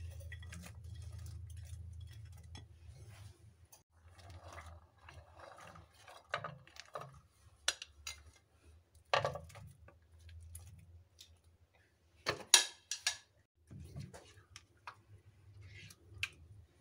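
Plates of chopped fruit tipped into thick custard in a steel pan, then a spoon stirring the mixture, with scattered clinks and knocks of plate and spoon against the pan; the loudest pair of knocks comes about twelve seconds in.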